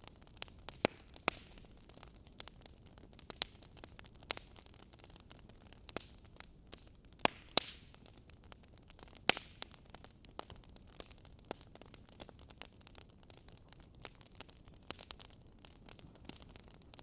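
Wood fire crackling in a fireplace: irregular sharp pops and snaps over a faint steady hiss, with a few louder pops in the first half.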